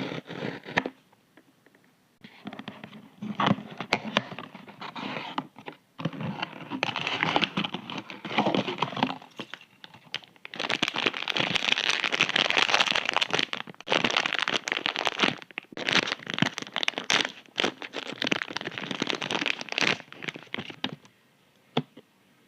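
Packaging being crinkled, crumpled and torn open by hand, in bursts of dense crackling with short pauses between.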